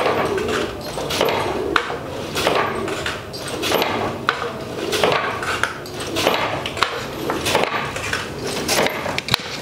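Wooden hand loom being worked by a weaver: a regular clack of wood on wood, about three knocks every two seconds, as the beater is pulled and the loom's frame shifts.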